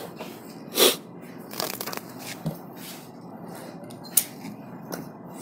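Sheets of paper being handled on a desk: a few short, sharp rustles and knocks over a steady low hiss, the loudest about a second in.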